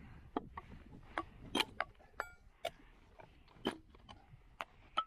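Scattered, irregular sharp clicks and knocks, with a brief ringing clink about two seconds in.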